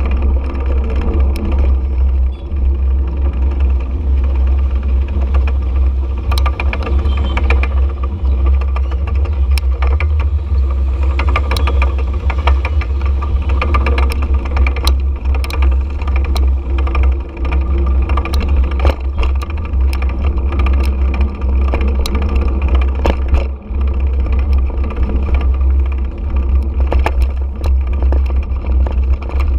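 Road noise from a GoPro riding on a motorcycle through city traffic: heavy low wind rumble on the microphone and a steady engine drone, with frequent sharp clicks and rattles.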